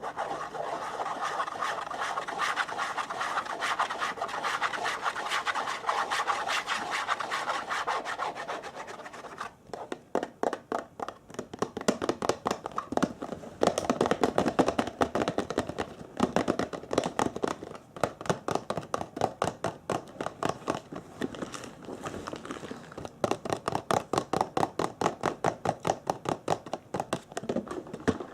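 Close-miked ASMR rubbing sound. It is a dense, continuous rubbing for about the first nine seconds, then turns into quick separate strokes, several a second.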